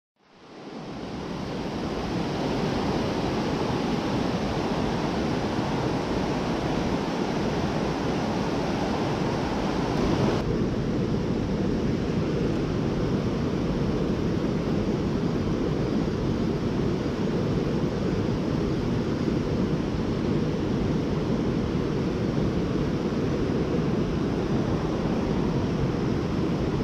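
Rushing water of a mountain stream, a steady rush that fades in at the start. About ten seconds in, the higher hiss drops away suddenly and a duller rush carries on.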